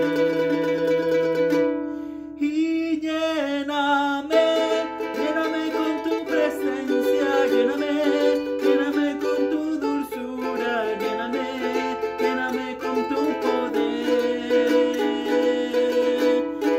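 Ukulele strummed in steady chords of a worship chorus in A minor, with a man's voice singing along over it. A long held vocal note ends about two seconds in, and after a brief dip the singing and strumming carry on.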